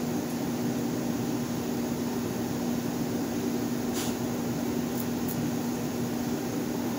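Steady mechanical hum with a low, even tone, like a running motor or fan in a workshop. A sharp click comes about four seconds in, followed by two faint ticks a second later.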